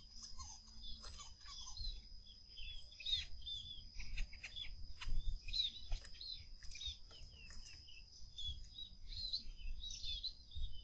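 Small birds chirping in a quick run of short, sliding calls, over a steady high-pitched tone.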